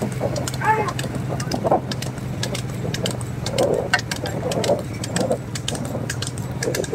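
A bull pulling a light two-wheeled racing cart at a run on a paved road: the cart clatters and clicks rapidly over a steady low engine hum.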